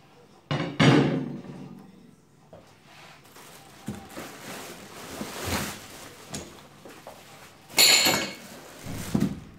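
A coilover strut being unpacked from its cardboard box: dull thuds about a second in, rustling as its protective foam sleeve is pulled off, and a sharp clatter near the end.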